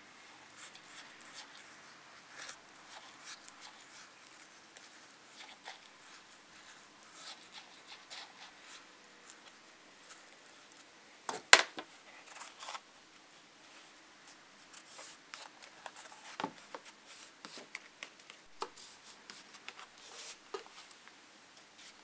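Hands working an insole into a snake-leather high-heel shoe: soft rubbing and scraping of leather and insole board with scattered light taps, and one sharp click about halfway through.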